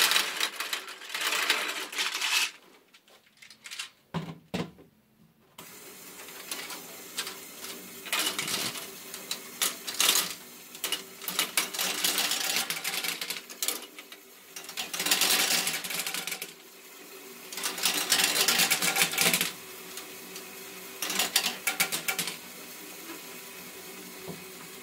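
LEGO Technic great ball contraption module, an inverted conveyor belt, with plastic gears and belt links clattering as it carries small plastic balls up. A burst of clattering near the start gives way, about five seconds in, to a steady motor hum. Over the hum, bursts of ball and gear clatter come and go every few seconds.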